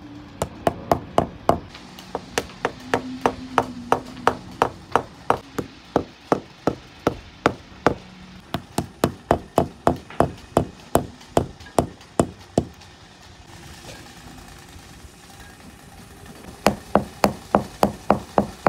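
Wooden mallet tapping wooden plugs into the counterbored screw holes of a wooden boat's nameboard trim: a long run of sharp wood-on-wood knocks, about two to three a second, a pause of a few seconds, then another run of knocks near the end.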